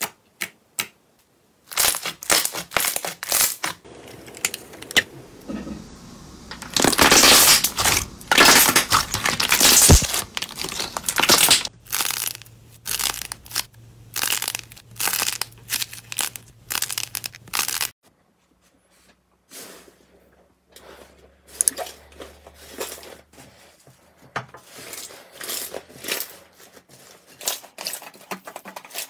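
Slime being squeezed, stretched and pressed by hand, with dense crackling, popping and tearing sounds. The loudest, densest crackling comes between about seven and twelve seconds in. It stops briefly about eighteen seconds in, then sparser pops and crackles follow.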